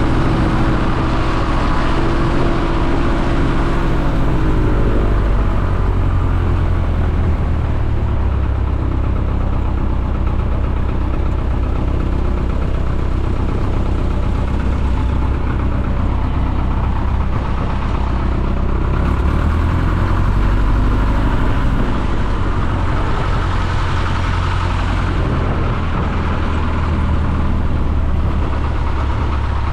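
Piper J-3 Cub's engine and propeller running steadily, heard from inside the cockpit: a loud, even drone whose pitch shifts slightly in the first few seconds, then holds.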